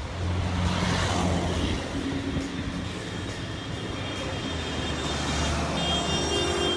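Road traffic with a vehicle engine running close by, a steady low hum over a noisy rush.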